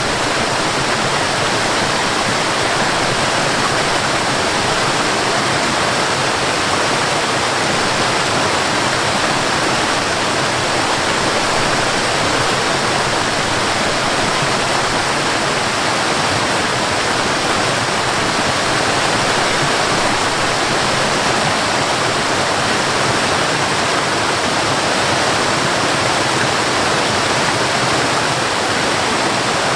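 Cascading water falling and splashing in a steady, unbroken rush.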